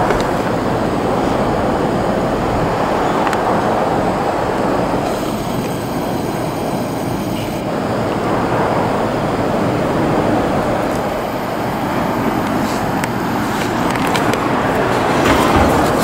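Steady rumble and hiss of a moving vehicle, with a faint high whine for a few seconds midway and again near the end, and scattered clicks near the end.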